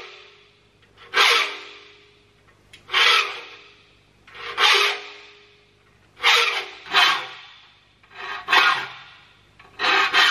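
Saw file being pushed across the teeth of a vise-clamped crosscut handsaw, a rasping stroke about every one and a half seconds, seven in all. Each stroke sets the thin steel saw plate ringing briefly like a tuning fork.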